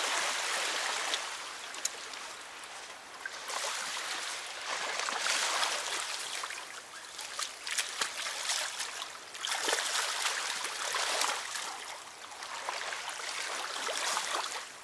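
River water washing and trickling along the bank, swelling and fading every few seconds, with a few faint clicks.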